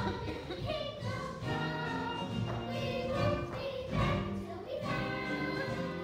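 Stage musical number: a children's cast singing together over backing music.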